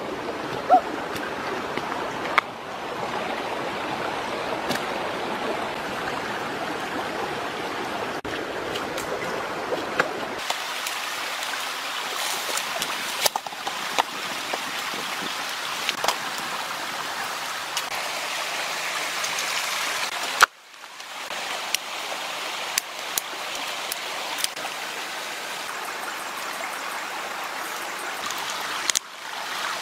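Steady rushing of a shallow, rocky creek, with scattered sharp clicks and knocks. The water sound cuts abruptly twice, about a third and two thirds of the way through, each time becoming thinner and hissier.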